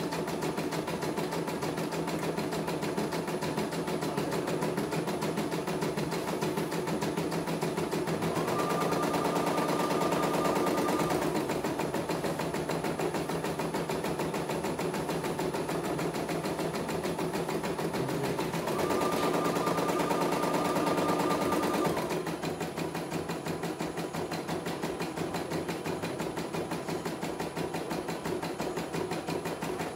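CNY E900 computerized embroidery machine stitching a test design: a rapid, steady needle clatter. Twice, around a third and around two-thirds of the way through, a whine joins in and the machine runs louder for about three seconds.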